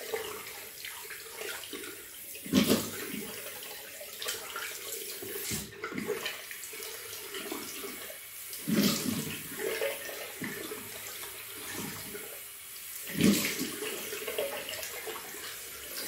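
Tap water running into a bathroom sink, with three louder splashes.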